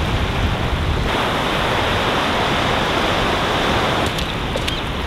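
Ocean surf washing over the shallows: a steady rushing of small breaking waves, swelling from about a second in and easing again near the end.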